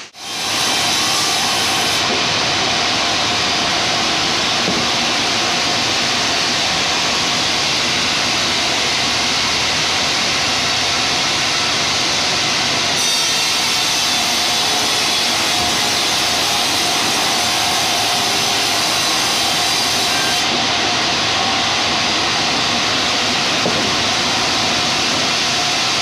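Large band sawmill running and sawing timber on its rail-mounted log carriage: a steady, loud noise from the saw and its machinery.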